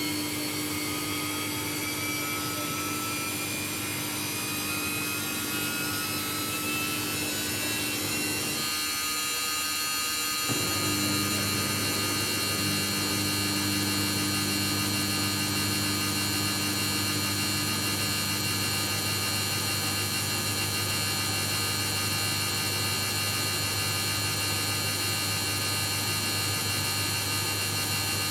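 Samsung EcoBubble front-load washing machine spinning up in its spin cycle. The motor's whine climbs in pitch for the first eight seconds or so and then holds steady at high speed, and a low hum joins it about ten seconds in.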